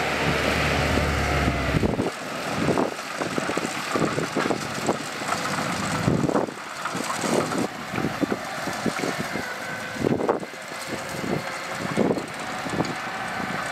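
Diesel construction machinery working sand: a low engine rumble for about the first two seconds, then irregular clanks and knocks for the rest.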